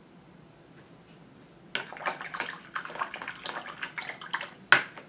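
A paintbrush being cleaned between colours: about three seconds of quick, splashy clicking and rustling that starts nearly two seconds in and ends with one sharp knock.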